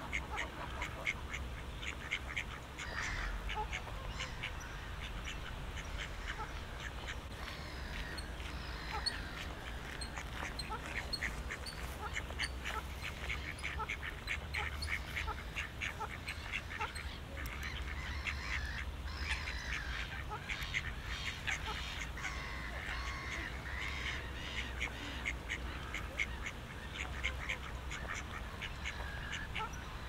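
Ducks quacking and chattering in a steady run of short calls, over a low steady rumble.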